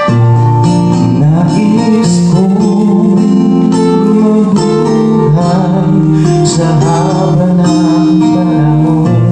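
Music: a slow ballad with guitar, held notes and a sliding melody line.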